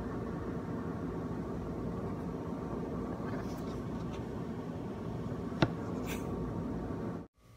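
Steady room hum with a few faint handling noises, and one sharp click about five and a half seconds in as a hand reaches over the recording phone. The sound cuts off suddenly just before the end.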